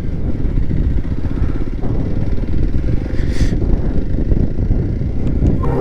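Motorcycle being ridden at a steady pace, its engine running with a dense, even low rumble.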